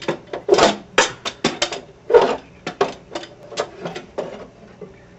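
Rapid, irregular metallic clicking and knocking as the rear brake caliper is handled and worked on, thinning out near the end.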